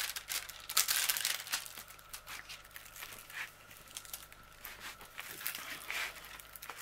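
Clear plastic cover film on a diamond painting canvas crinkling as hands press and smooth the canvas flat: an irregular run of light crackles.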